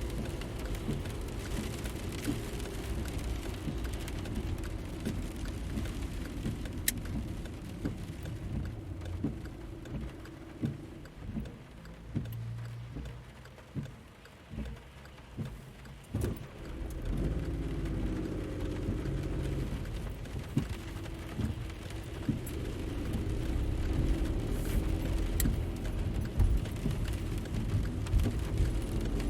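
Car engine running with a low rumble. It drops quieter about a third of the way in, with a few separate clicks and knocks, then picks up again and rises and falls in pitch toward the end.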